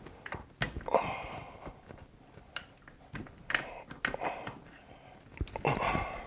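Scattered sharp metal clicks and light knocks from transmission parts being handled on a bench, with a few short scraping or rustling noises between them.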